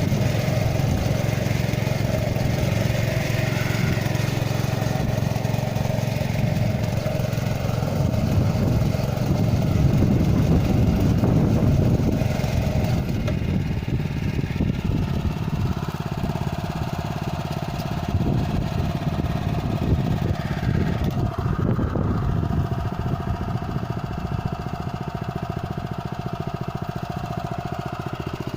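Small engine of a one-wheel walking plough running steadily, a little louder for a few seconds near the middle, its note shifting a couple of times as it works.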